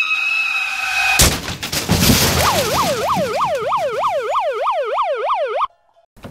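A steady high-pitched tone, broken about a second in by a sharp crash and a noisy clatter, then a siren wailing in fast up-and-down yelps, about four a second, that cuts off suddenly near the end.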